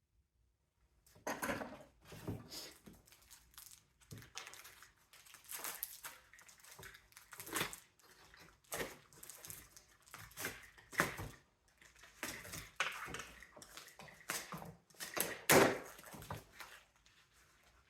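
Irregular clanks, snaps and scrapes of metal and plastic parts being pried, cut and handled while a mini-split air conditioner is dismantled for scrap, starting about a second in.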